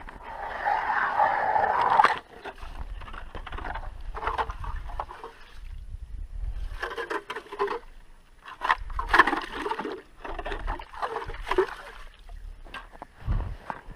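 Water and slush on flooded lake ice splashing and sloshing in irregular bursts, loudest in the first two seconds.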